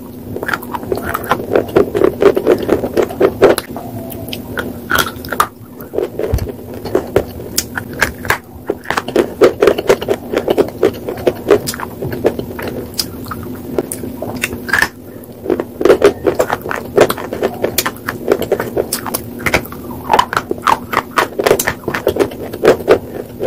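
Close-miked chewing of hard white slate pieces: a dense, uneven run of sharp crunches and crackles, with a low steady hum underneath.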